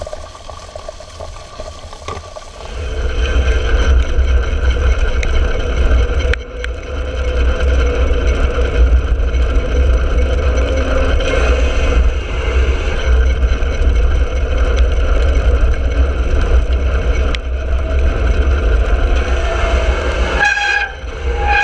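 Mountain bike rolling fast down an asphalt road: a loud, steady low wind rumble on the handlebar camera's microphone with a steady multi-tone whine over it, starting about three seconds in.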